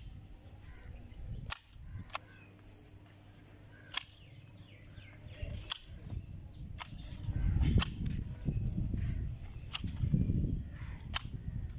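Long-handled loppers cutting hard olive branches: about nine sharp snaps as the blades close through the wood, with rustling of the shaken branches in between, heaviest about two-thirds through.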